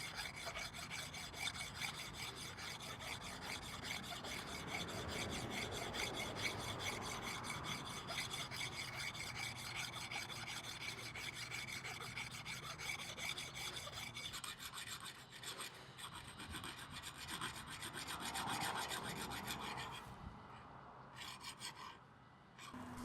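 Rasp or file working a wooden axe handle, a fast run of rubbing strokes that dies away about twenty seconds in.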